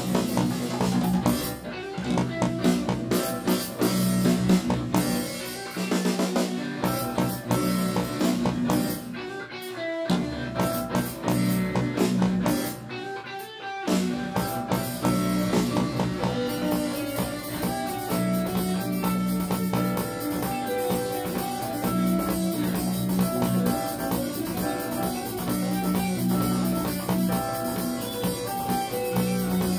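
Live band playing: guitar, keyboards, bass and drums. The low end drops out in short breaks a few times in the first half, and the full band then plays on steadily.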